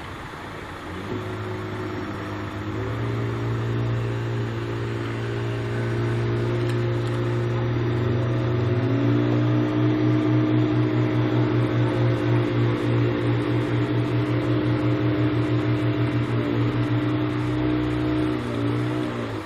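Large engine running at a steady speed with a deep hum. Its pitch steps up about halfway through, with a slight pulsing, then drops off near the end.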